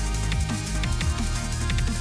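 Electronic background music with a steady beat, heavy bass and repeated falling bass sweeps.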